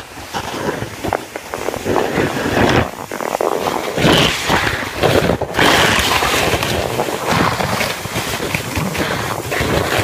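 Sled sliding and scraping over snow in a continuous rough rush, mixed with wind buffeting the microphone as it rides along.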